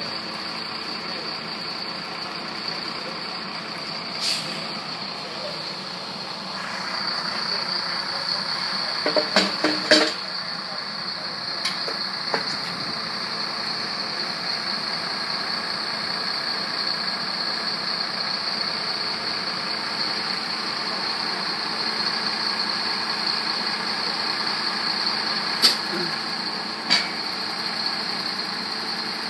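Mobile crane's engine running steadily, rising in level about six or seven seconds in, with a few sharp knocks, the loudest a cluster about nine to ten seconds in.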